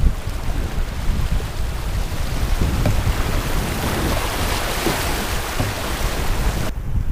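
Steady rushing of river water around a kayak, with gusty wind buffeting the microphone. The hiss drops away abruptly near the end.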